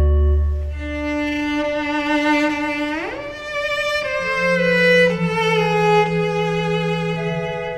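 Cello and organ playing a slow Baroque duet. A deep organ note dies away at the start, then the cello plays long bowed notes and slides up into a higher note about three seconds in, over held organ notes.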